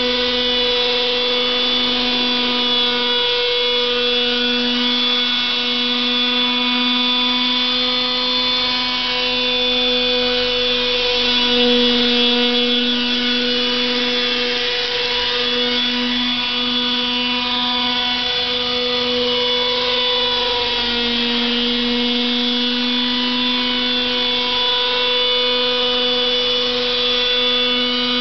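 Century radio-controlled model helicopter in flight: a steady whine from its motor and rotor, the pitch wavering and dipping briefly every few seconds as it manoeuvres.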